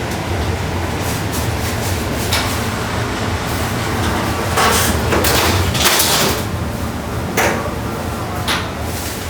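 Restaurant kitchen work: scraping and clattering strokes of metal utensils over a steady low hum, with a cluster of longer, louder scrapes near the middle.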